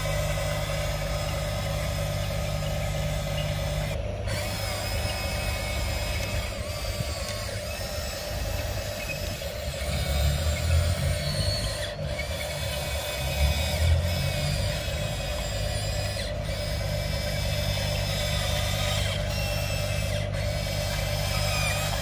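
Electric motors and gearboxes of a Huina radio-controlled excavator whining steadily as it drives its tracks and works its arm, with a louder, rougher spell about ten to fourteen seconds in. The sound breaks off for an instant a few times.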